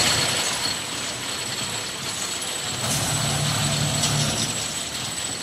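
Roller coaster chain lift running steadily as the train of a Rocky Mountain Construction Raptor single-rail coaster (Wonder Woman Golden Lasso Coaster) climbs to the crest of its lift hill, with a ratcheting mechanical clatter of the lift and anti-rollback.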